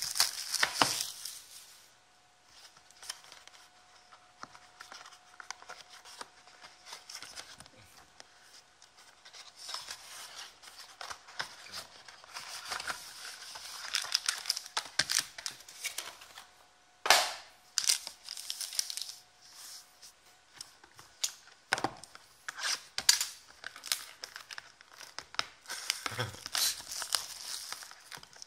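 Clear plastic shrink-wrap being torn and crinkled off sealed basketball trading card boxes, in irregular bursts with a few sharp rips, the loudest about two-thirds of the way through.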